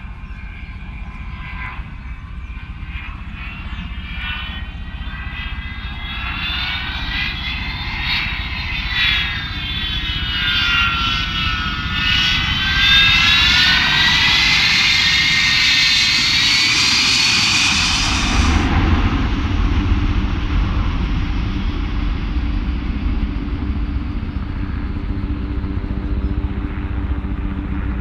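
Avro Vulcan's four Rolls-Royce Olympus turbojets running as the bomber flies low with undercarriage down. A high wavering whine swells and glides up and down in pitch over the engine rumble, growing louder. About two-thirds in the whine cuts off suddenly, leaving a lower, steady jet rumble.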